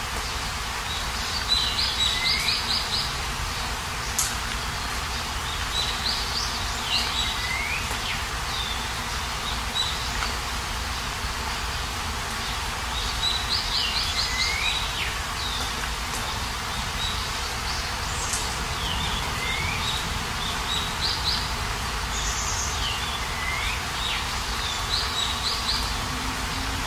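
Steady rain falling, with a songbird calling over it every few seconds: short phrases of rapid high notes and a downward-sliding note.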